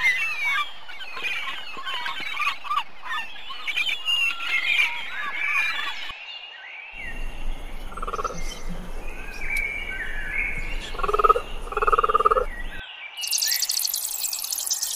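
Several birds chirping and singing in quick, overlapping calls. About halfway through, a different recording takes over with a low hum and a few short calls. Near the end, a dense high-pitched buzz starts.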